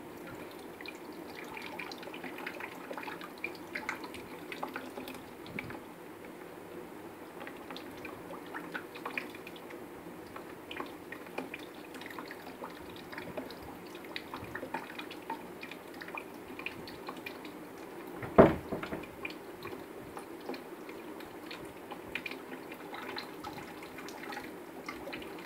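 Water trickling and dripping out of a plastic bottle through a small tube at its base into a tub below, as the bottle is drained. One sharp knock comes about two-thirds of the way through.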